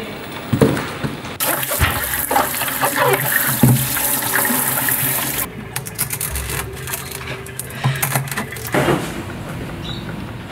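Water gushing and splashing in a sink for a few seconds, then a run of sharp knocks and clicks as a metal opener is driven into a young green coconut.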